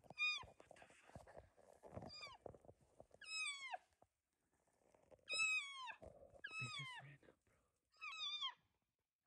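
A series of about six cow-elk mews: high, nasal calls that slide down in pitch, some short and some drawn out, the longest near the middle.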